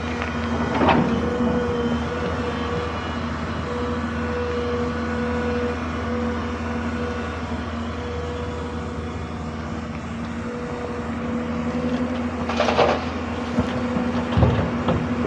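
Excavator's diesel engine running steadily with a constant pitched hum, broken by short knocks or clanks about a second in and again near the end.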